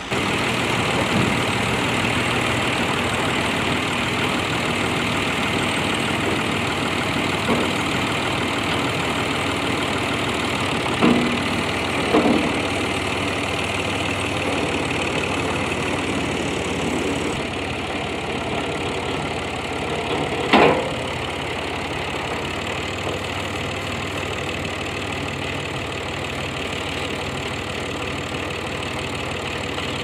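Kubota loader tractor's diesel engine running steadily, with a few short knocks, the loudest about two-thirds of the way through.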